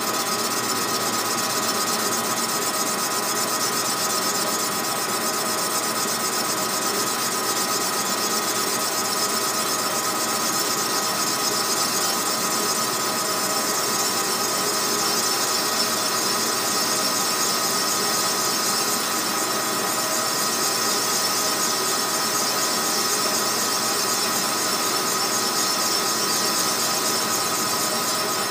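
Small benchtop metal lathe running steadily with a gear whine, turning an aftermarket Stihl MS 660 chainsaw cylinder held in its chuck.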